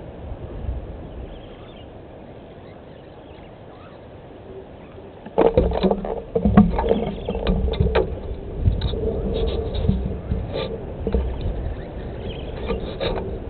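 A vervet monkey handling the camera rig and its microphone at close range. About five seconds in, a sudden burst of knocks, scrapes and rubbing starts and keeps going in bouts, over a low rumble.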